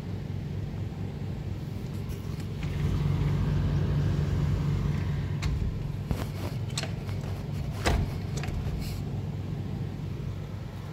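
Steady low rumble of city traffic from the streets below, swelling for a few seconds midway. A few sharp clicks and a knock come between about five and nine seconds in, the loudest near eight seconds.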